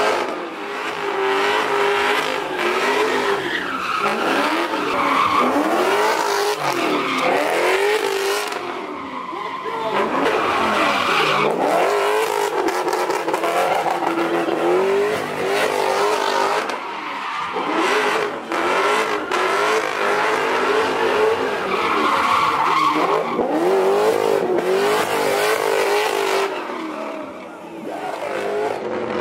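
A car doing donuts: its engine revs hard and holds high revs, the pitch swinging up and down, while the rear tires screech and spin on the pavement. The engine eases off briefly about ten seconds in and again near the end.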